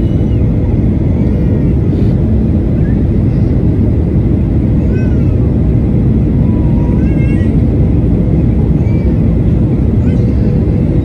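Steady roar of an airliner cabin in flight: jet engines and airflow on the approach descent, with a faint steady hum running through it.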